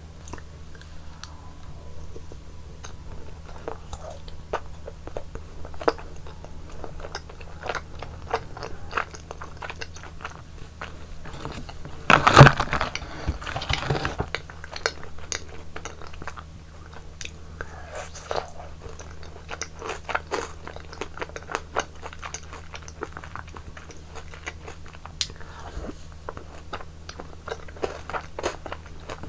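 Close-miked eating: biting and chewing frozen yogurt ice cream, with many small crunchy, sticky clicks and a louder burst of crunching about twelve seconds in, over a steady low hum.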